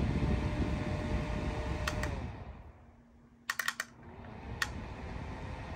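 Small battery-powered clip-on fan blowing, then switched off and winding down about two seconds in. Its control button clicks a few times, and the fan starts spinning up again near the end.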